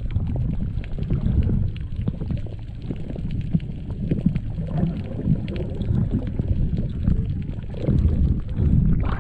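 Water sloshing and splashing right at the microphone: a muffled, uneven low rumble with many small crackles.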